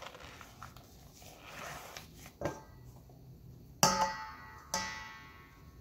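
Cornstarch poured into a stainless steel mixing bowl with a soft hiss, then a plastic measuring cup knocked twice against the bowl, about a second apart, each knock leaving the metal bowl ringing.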